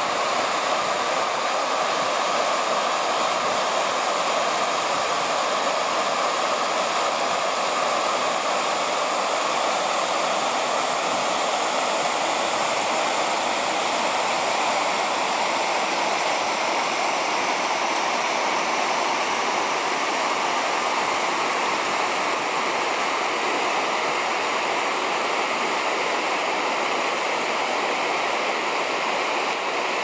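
Water pouring over a small waterfall's rock ledges and running on through the rocky stream below: a steady, even rush.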